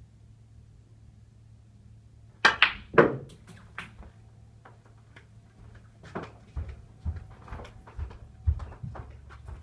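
Snooker shot: the cue strikes the cue ball and balls crack together in three sharp clacks within half a second. Lighter knocks and footsteps follow as the player moves around the table.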